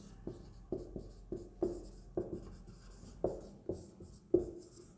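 Marker pen writing on a whiteboard: about a dozen short, irregularly spaced strokes and taps as letters are written out.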